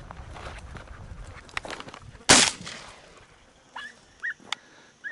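Footsteps and rustling through dry scrub with a dog close by, and one short, loud burst of noise a little over two seconds in. Near the end come a few brief high whines and a click.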